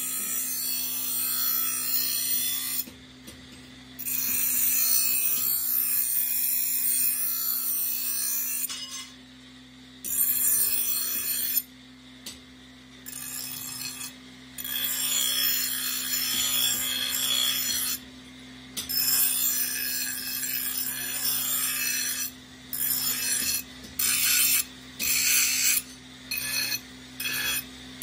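Bench grinder's abrasive wheel grinding a steel cleaver blade. A harsh rasping grind sounds each time the steel is pressed to the wheel and drops away when it is lifted, over the grinder motor's steady hum. Near the end the passes become short and rapid.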